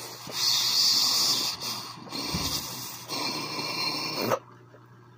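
Glass dab rig bubbling as a long pull is drawn through its water, in two stretches, the first the louder, cutting off suddenly about four seconds in.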